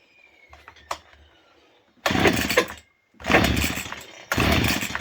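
Stihl FS40 strimmer's small two-stroke engine being pull-started on its recoil starter: three hard pulls, each turning the engine over for under a second, without it catching.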